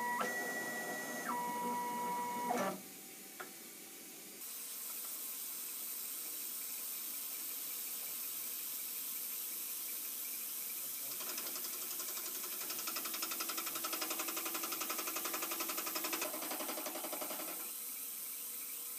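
Vertical milling machine facing a steel part held in its vise: a steady machine whine that drops in pitch and stops about three seconds in, then the steady hiss of the cut, louder with a fast flutter for several seconds in the second half.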